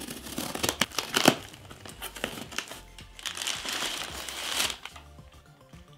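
A knife slitting open a cardboard box, a quick run of sharp scraping rips in the first second and a half. Then packing material inside the box rustles and crinkles as hands dig into it.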